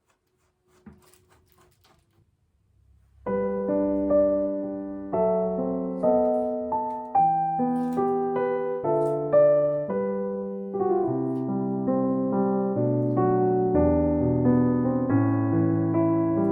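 Background piano music that starts about three seconds in, after a few faint clicks, and goes on as a steady sequence of struck notes and chords.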